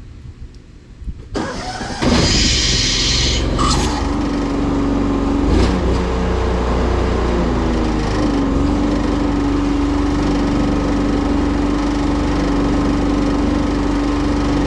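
Pressure-washer rig's engine starting about a second and a half in, then running steadily. Its pitch shifts and settles into an even drone at about eight seconds.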